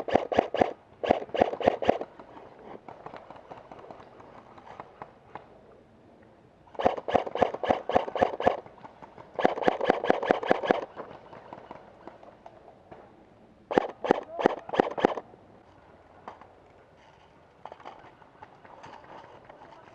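Airsoft guns firing on full-auto: five rapid bursts of shots, each lasting a second or so, the last ending about three-quarters of the way through.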